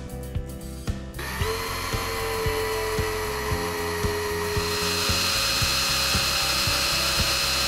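Electric hand drill running steadily with a twist bit cutting through a metal plate clamped in a vise, its motor whine starting about a second in and holding steady.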